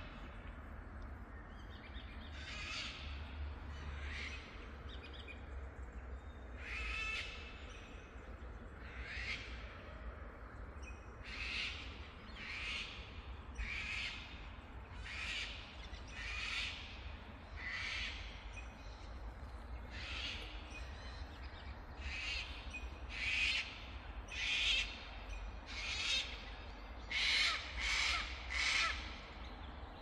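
A bird calling over and over, short calls about once a second, with several louder ones near the end, over a low steady rumble.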